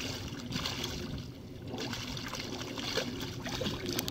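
Water splashing and sloshing as a hooked pike thrashes in the shallows at the bank's edge, in two bouts, the second longer.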